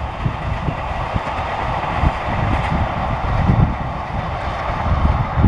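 Passenger train coaches rolling past on the rails, a steady rush of wheel-on-rail noise. Irregular low buffets of wind on the microphone run underneath.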